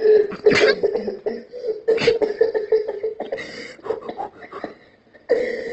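A man laughing hard and uncontrollably, a wheezing, cough-like laugh broken into short gasps, easing off near the end before starting up again.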